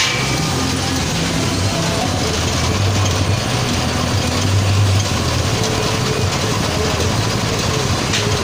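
Small single-cylinder petrol engine on a rice thresher running steadily at an even speed.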